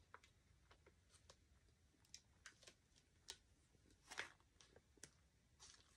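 Faint crinkles and soft clicks of a plastic silkscreen transfer being handled and peeled off a glass tumbler, a little louder about four seconds in.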